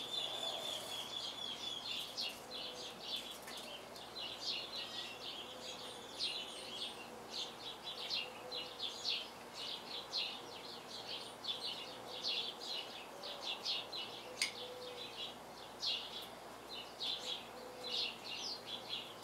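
Small birds chirping, a busy run of short high chirps several times a second, over a faint steady background hum.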